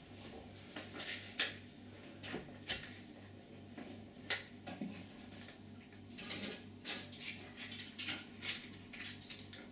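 Light plastic clicks and taps, scattered and coming more often in the second half, as plastic glazing packers are handled and pushed into the gap between a uPVC door panel and its frame.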